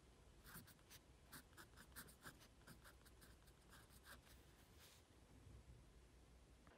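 Faint scratching of a fine-tipped pen on lined notebook paper as characters are written: a quick run of short strokes that stops about five seconds in.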